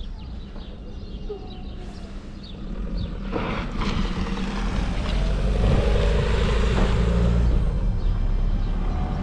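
A vehicle rumbling past, growing louder over the first few seconds and easing off near the end, with a few clattering knocks and faint gliding squeals in the middle.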